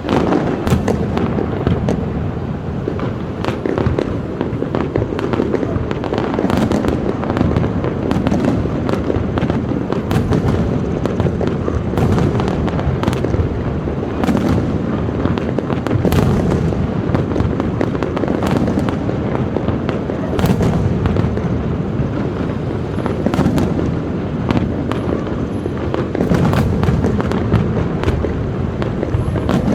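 Aerial fireworks going off in a continuous barrage: many sharp bangs and crackles close together over a constant low rumble of bursting shells.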